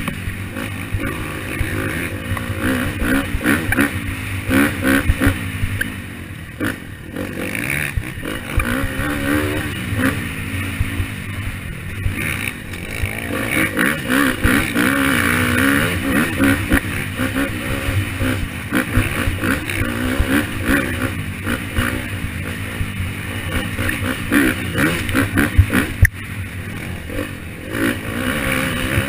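KTM dirt bike engine under way, its revs rising and falling with the throttle, with frequent knocks and clatter from the bike over rough ground.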